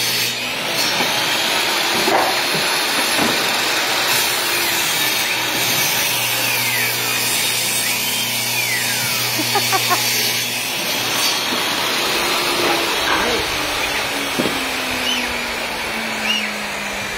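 Table saw running and cutting a plywood sheet, with a steady dense whirring noise. About two thirds of the way through, the motor's hum stops and a tone falls slowly in pitch as the blade winds down.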